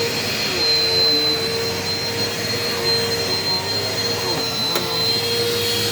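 Eureka PowerSpeed upright vacuum cleaner running steadily: a continuous motor whine with a high, thin tone over a rush of airflow. There is one brief click a little before the end.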